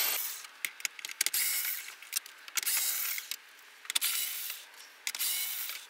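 Cordless driver with a 7 mm socket whirring in short runs, about five of them, with small clicks between, as it backs out the screws that hold the Sync 3 display in the dash.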